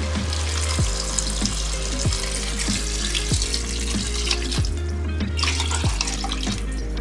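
Water poured in a steady stream into a cooking pot of vegetables, splashing onto them, with a brief break about five seconds in. Background music with a steady beat plays underneath.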